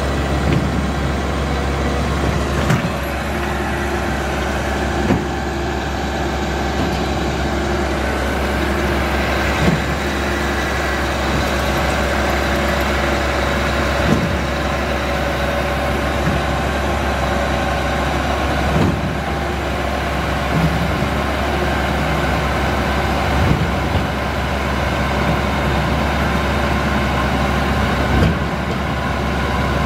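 Two large farm tractors' diesel engines running steadily under load as they tow a hen shed on chains, with a handful of brief knocks.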